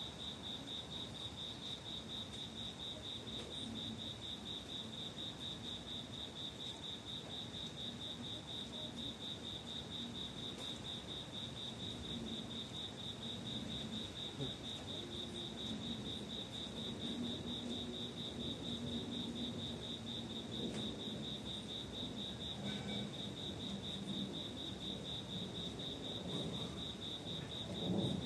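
Cricket trilling steadily in a fast, even pulse, over faint low background noise, with a brief low thump near the end.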